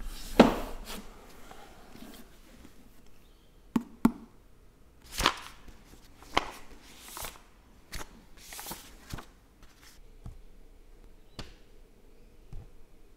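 A hardback Greek New Testament taken down from a shelf with a loud scrape about half a second in, then handled and leafed through: a string of separate paper page rustles and soft knocks spread a second or so apart.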